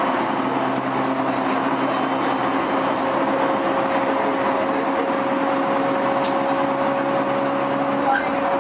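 Steady equipment noise inside an E231 series electric train carriage standing at a station: ventilation rush with a few steady hum tones. A lower hum comes in about half a second in and cuts off near the end.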